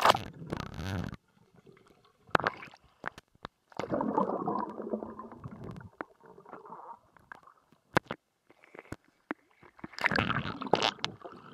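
Waterproof camera moving in and out of a swimming pool: splashes as it breaks the surface and a muffled underwater bubbling and gurgling, with scattered sharp clicks and a louder burst of splashing near the end.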